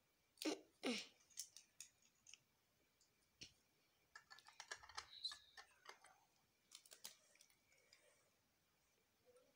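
Plastic LEGO bricks clicking and clattering faintly as they are picked up and pressed together onto a baseplate: two sharp clicks near the start, then irregular runs of small clicks.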